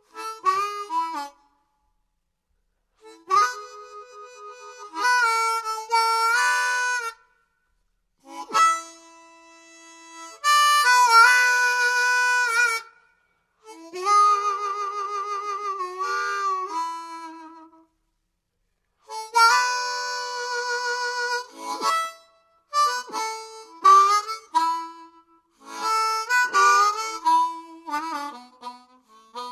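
Harmonica music: phrases of held and sliding notes, broken several times by short silences.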